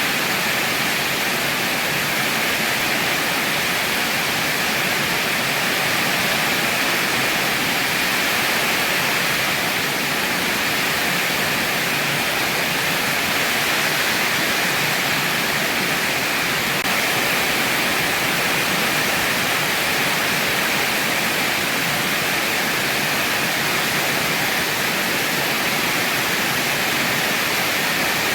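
Heavy rain falling steadily, an even, unbroken hiss of rain.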